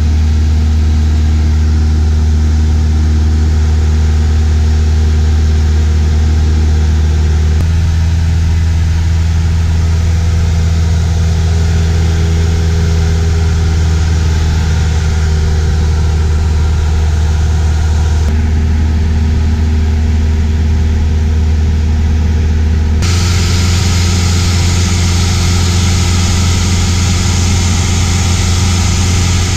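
Cessna 172S single-engine plane in cruise flight: the steady, loud drone of its four-cylinder Lycoming engine and propeller. The tone shifts abruptly a few times, and more wind hiss comes in over the last several seconds.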